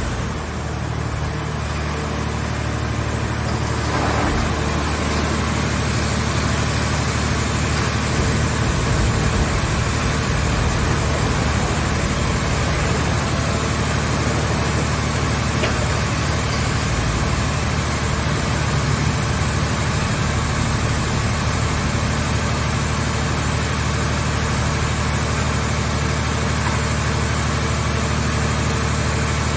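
Car body baler's engine running steadily, a constant low hum with no breaks or changes.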